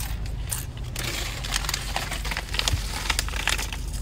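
Crinkling of a Rap Snacks potato chip bag as a hand works in it, a run of quick sharp crackles over the low steady hum of the car cabin.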